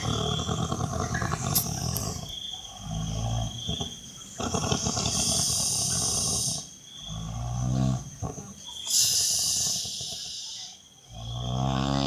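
A person snoring: a rattling, pitched snore comes about every four seconds, each followed by a long hissing breath.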